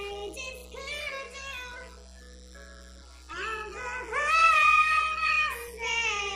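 Sped-up, high-pitched chipmunk-style singing over music, in sung phrases with a quieter lull about halfway through.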